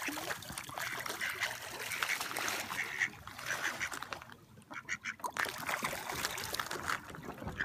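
Ducks quacking and splashing on the water as they scramble for food, with short calls scattered throughout and a quieter stretch about halfway through.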